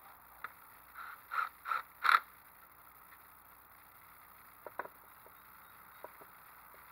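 Cordless drill driving a screw into the metal frame of an elevated dog cot in four short trigger pulses, the last the loudest. A few light clicks follow as the next screw is handled and set in place.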